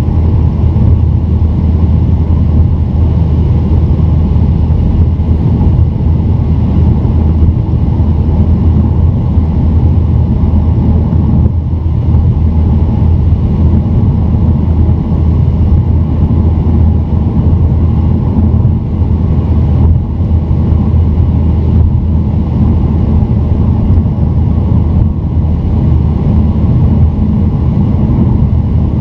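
Steady low rumble of a car driving on a highway, heard from inside the cabin: tyre and engine noise, with no marked changes.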